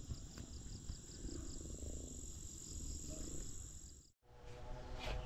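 Insect chorus, likely crickets: a steady high buzz with a row of rapid pulsing chirps above it, over a low rumble. It fades out about four seconds in, and after a brief gap scraping and tapping begin.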